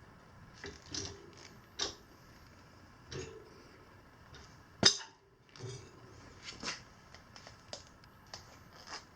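Tire irons knocking and clicking against a motorcycle wheel rim as a stiff knobby tire bead is levered over it, with one sharp clank about five seconds in.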